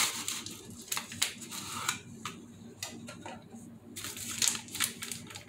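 Hands opening a box of strawberry Jell-O gelatin mix: the cardboard and the powder packet inside rustle and crinkle in quick bursts, with a quieter stretch in the middle.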